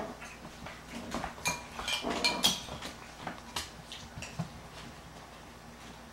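Puppies play-fighting on a hardwood floor: their claws click and scrabble on the boards, with a few short high-pitched yips about two seconds in. The clicking thins out over the last second or two.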